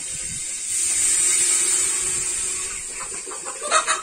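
Sizzling in a hot steel pot on a wood fire. It swells loudly about a second in as the saaru is poured in, then dies down.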